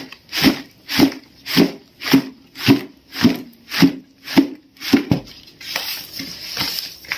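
Hands mixing oily, chilli-coated raw mango pieces in a plastic tub for avakaya pickle: rhythmic wet scooping strokes, about two a second. After about five seconds they turn softer and less regular.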